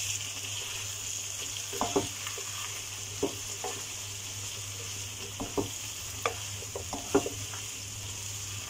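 Cut okra being stirred into frying onion-tomato masala in a kadhai: a steady sizzle, with short scrapes and knocks against the pan every second or so.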